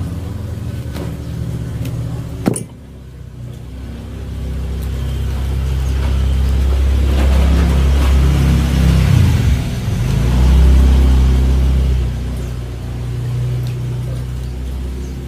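A low engine rumble that swells from about four seconds in, is loudest in the middle and eases off toward the end, with one sharp click about two and a half seconds in.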